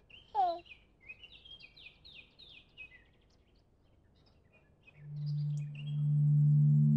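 Birdsong of quick, short falling chirps in the first few seconds. About five seconds in, a low held musical note swells in, the start of the show's theme music.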